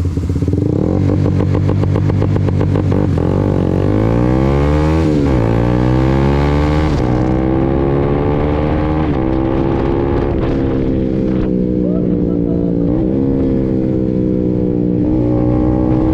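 Honda CBR150R's single-cylinder engine held at steady revs on its launch control with a rapid, even stutter, then revving hard as the bike launches. It climbs through the gears with quickshifted upshifts, the pitch dipping briefly at each shift, several times over.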